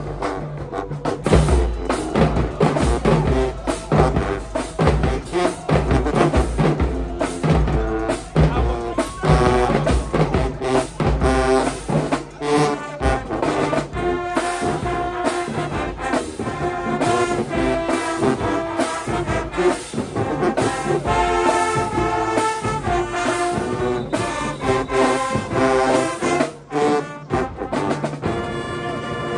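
High school marching band playing: brass horns carry the tune over steady drum hits, ending on a held brass chord.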